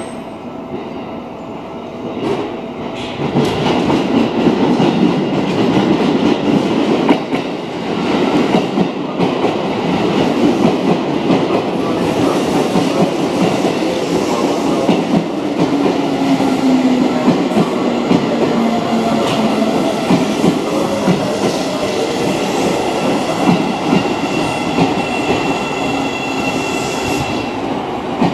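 Seibu 9000 series electric commuter train pulling into the platform, its wheels clattering over rail joints and points, loud from a few seconds in. A low tone falls in pitch midway as it slows, and a thin high brake squeal comes near the end as it draws to a stop.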